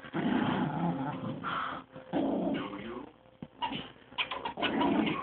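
Dogs growling and whining in play, in three bouts with short gaps. The pair are a Chihuahua and a seven-week-old Lab/golden retriever puppy.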